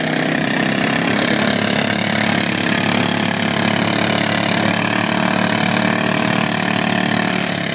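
ATV engine running steadily at a held throttle, with no rise or fall in pitch, while its rear wheel spins in deep mud and flings it out.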